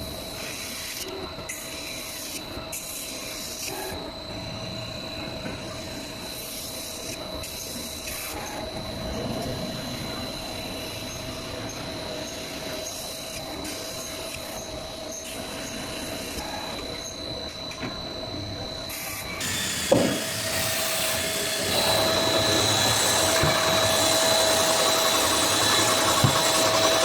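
CNC metal spinning machine running with a steady high whine. About two-thirds of the way in there is a knock, and then a louder, harsher rubbing noise sets in as the sheet-metal blank is spun into an air compressor head.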